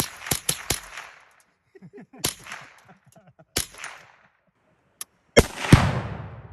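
.22LR rifle fire: a rapid string of shots, about four a second, ends about a second in. Two single shots follow, a second or so apart. Near the end a far louder blast with a long low rumble, a tannerite target exploding.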